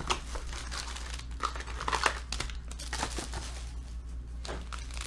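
Plastic wrapping crinkling and crumpling in hands as a sealed trading-card box is unwrapped, in irregular crackles.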